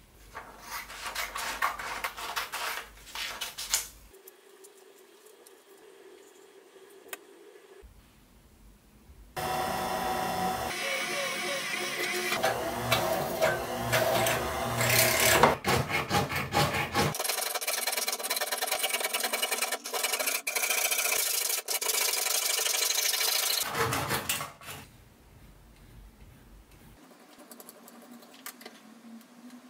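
Small metal connecting rods being made by hand. A drill press motor runs and bores through a thin metal plate for several seconds, followed by a steady high-pitched noise of several more seconds. Near the end come light strokes of a needle file on a part held in a vise.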